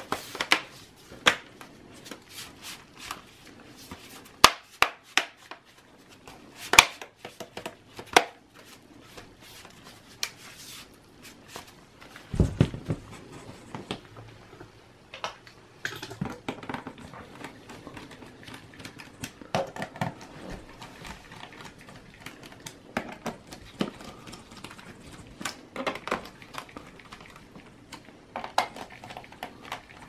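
Plastic bottom cover of a Lenovo ThinkPad E480 laptop being pressed and snapped back into place: a run of sharp plastic clicks and taps, with a dull thump near the middle. Later, lighter ticking and scraping as a small screwdriver works the cover screws.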